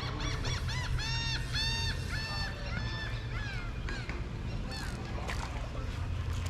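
A bird calling a quick series of short, arched, honking notes, about a dozen in the first three seconds, that slow and fade out by about four seconds in.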